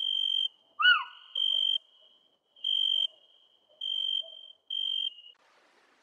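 A bird's high whistled notes: five held notes at one even pitch, each about half a second long, with one louder short call that rises then falls about a second in.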